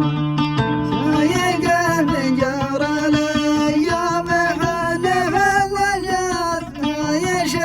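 A song: a man singing a melodic line over a plucked-string accompaniment.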